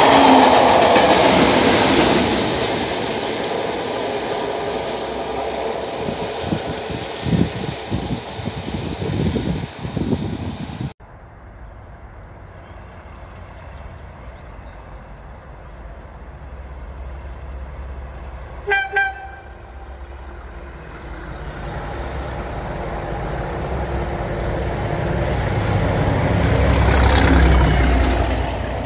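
A passenger train passing close at speed, cut off abruptly; then a train horn gives two short toots in the distance, and a diesel locomotive approaches with a low rumble that builds and passes close near the end.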